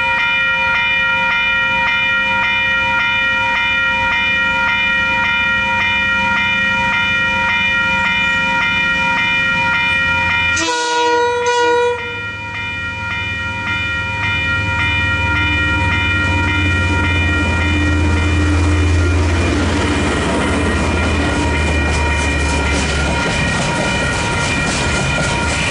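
Western Cullen Hayes electronic crossing bells ringing steadily. About eleven seconds in, a diesel locomotive sounds one short horn blast, and its engine's low rumble grows as it reaches the crossing. Near the end, container wagons rattle and clickety-clack over the crossing.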